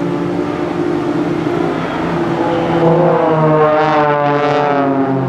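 Several Extra 300 aerobatic planes' piston engines and propellers droning together as the formation flies past. The engine note bends up and down in pitch over the second half.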